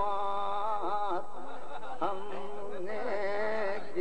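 A man's voice chanting a line of an Urdu ghazal in tarannum, the sung style of reciting poetry, drawing each word out in long, wavering held notes. There is no instrument.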